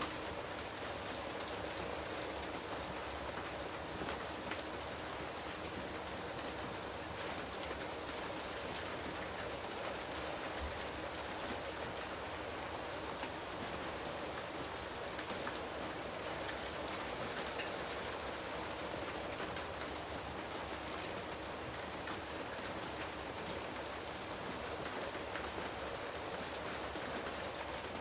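Steady rain falling on foliage, a constant hiss dotted with individual drops ticking.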